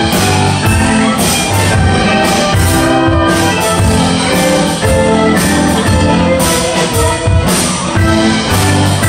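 Live contra dance band of fiddle, keyboard and percussion playing a dance tune with a steady beat.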